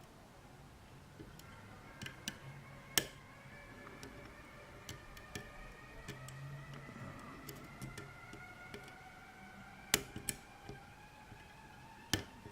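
Lock pick and tension wrench working the pin tumblers of a small Corbin padlock: sparse, irregular sharp clicks and light metal ticks as the pins are probed and set.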